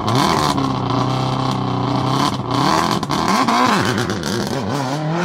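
Rally car engine running hard at high revs. Its note is held steady for a couple of seconds, then drops and rises several times, and it climbs again near the end.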